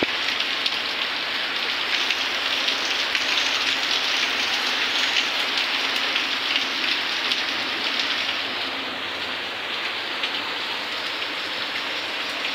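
Heavy rain pouring down onto a paved yard and leaves, a dense steady hiss of drops that eases slightly in the second half.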